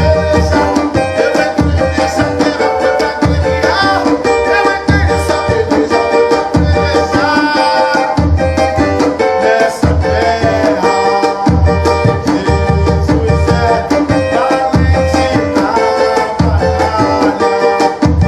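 Tantan hand drum and cavaquinho playing an upbeat Pentecostal corinho rhythm, the drum striking low beats under the strummed cavaquinho.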